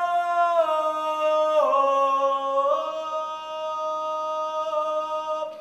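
A man's unaccompanied voice holding one long sung note, which dips in pitch about one and a half seconds in, rises back, and is held until it stops near the end.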